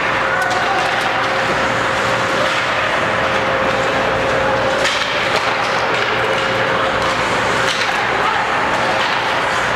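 Ice hockey game noise in an echoing indoor rink: spectators' chatter and the scrape of skates, with sharp knocks of sticks, puck or boards about five and eight seconds in, over a steady hum.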